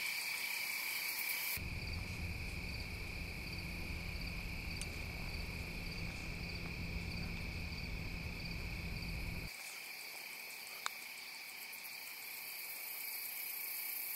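Insects chirping steadily in a constant high chorus. A low rumble runs from about two seconds in until it stops abruptly near nine and a half seconds, and a single sharp click comes near eleven seconds.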